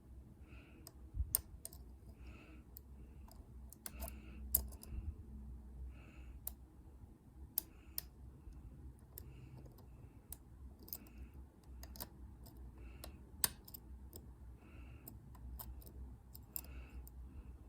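Faint, irregular metallic clicks and short scrapes of a pick working the pins of a dimple-lock Euro cylinder under tension.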